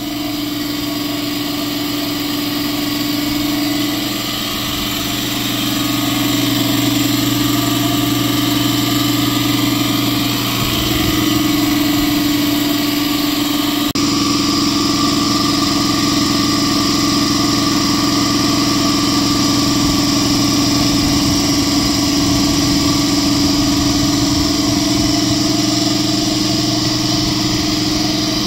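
Converted Husky air compressor running steadily, its pump driven by a replacement electric motor as it charges the tank from empty toward 150 psi; the run is smooth.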